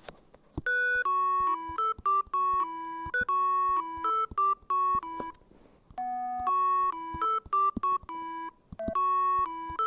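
A single-note melody (B, F♯, E, A, G, F♯, E…) played on an electronic organ voice, with flat, steady held notes. It comes in two phrases with a short break about halfway.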